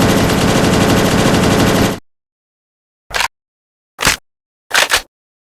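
AK-12 assault rifle sound effect firing a sustained full-auto burst that stops about two seconds in, followed after a pause by three short clacks spaced under a second apart.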